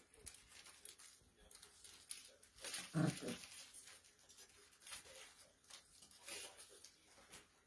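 Poodle puppies play-fighting on carpet: scattered scuffling and rustling, with one short, loud puppy vocalization about three seconds in.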